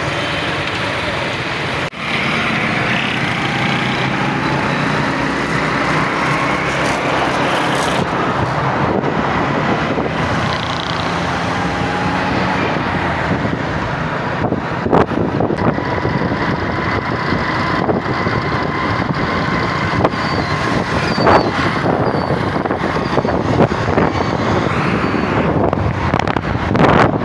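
Steady road and engine noise from a moving vehicle in traffic, with faint engine tones slowly drifting in pitch.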